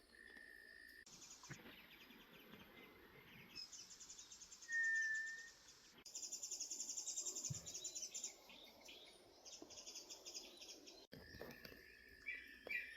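Outdoor wildlife ambience: insects and birds trilling in rapid pulses, with one short, clear whistled bird note about five seconds in.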